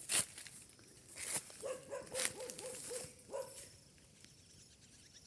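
A dog barking and calling, with one drawn-out call about a second and a half in. Brief rustling of footsteps through vegetation is heard in between.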